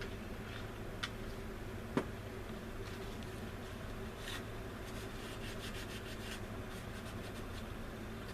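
Small plastic model-kit parts being handled and fitted: a light click, then a sharper, louder click about two seconds in, followed by a run of faint ticks and scratches. A steady low hum sits underneath.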